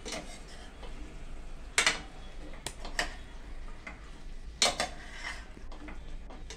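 Steel spoon stirring chicken pieces in a metal pot, clinking and scraping against the pot's sides several times, with the loudest knocks about two seconds in and again just before five seconds.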